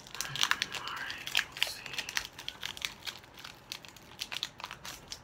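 Foil wrapper of a Pokémon Hidden Fates booster pack being torn open by hand, crinkling with many sharp little crackles that are busiest in the first few seconds and thin out towards the end.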